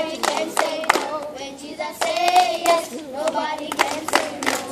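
A group of children singing together, with hand claps through the song and one long held note about two seconds in.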